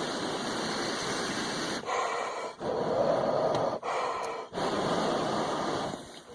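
A man blowing warm breath in long, breathy puffs onto a bird's feet frozen to a metal fence, to thaw them. There are about five blows with short breaks between them, and the blowing stops near the end.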